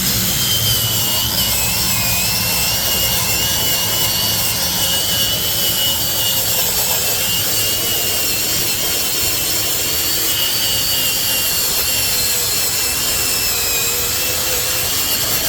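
Angle grinder running steadily under load, grinding rust and corrosion off a cast iron brake rotor, with a steady high whine that wavers slightly in pitch.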